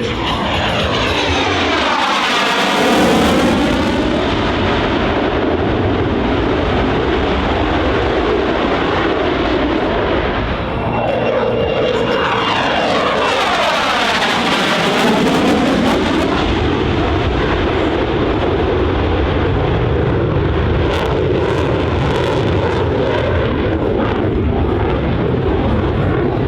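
Jet roar from a Boeing EA-18G Growler's two General Electric F414 engines in a low, fast pass. The pitch sweeps as it goes by about two seconds in, a second sweep follows around twelve seconds in, and loud jet noise carries on throughout.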